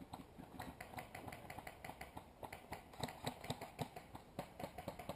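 Faint, rapid, irregular clicks of airsoft guns firing across the field, several shots a second overlapping from more than one shooter.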